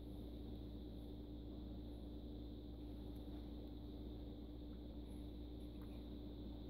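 Steady room tone: a low hum with a constant mid-pitched tone and a faint high whine, unchanging throughout, with only a few faint ticks.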